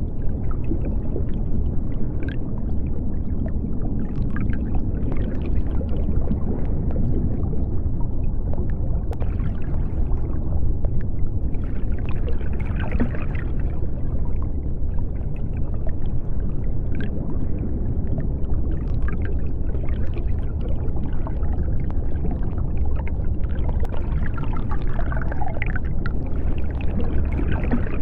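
Underwater ambience: a steady deep rumble with scattered faint clicks, and a few higher, hazy swells about twelve seconds in and near the end.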